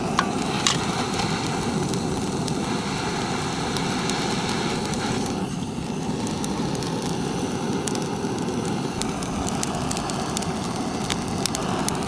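Campfire being lit: a steady rushing hiss with scattered sharp crackles and pops, which come more often near the end as the kindling catches.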